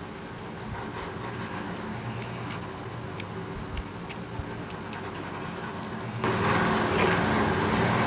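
Small, sharp clicks and taps of metal tweezers working on the internal connectors and shields of an opened iPhone 12, over a steady low hum. About six seconds in, the background suddenly steps up louder and fuller.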